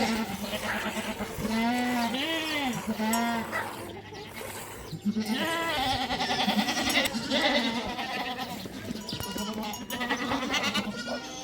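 A herd of goats and sheep bleating. There are a few separate calls at first, then many overlapping calls from about halfway through.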